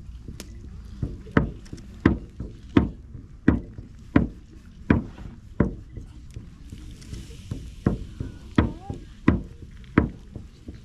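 Slow, steady percussion beats, about three strikes every two seconds, each with a short low ring. The beats grow louder after the first second.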